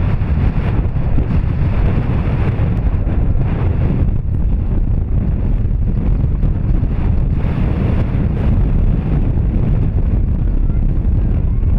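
Wind buffeting the camera's microphone: a loud, steady, rumbling noise.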